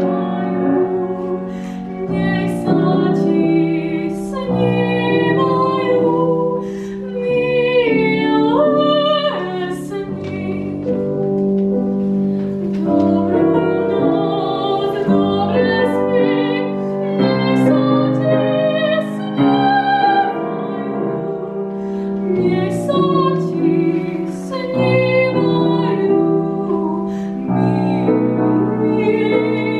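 A young woman singing a classical art song, accompanied on a grand piano. Her held notes waver with vibrato over the piano's sustained chords.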